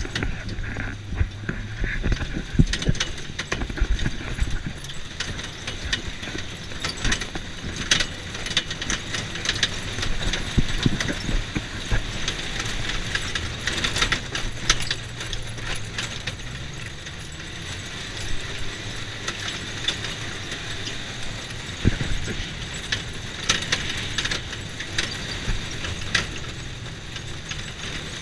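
Polaris Ranger UTV driving over a bumpy dirt track: a steady engine and drivetrain hum with frequent rattles and knocks from the body and loose parts as it jolts over the ruts.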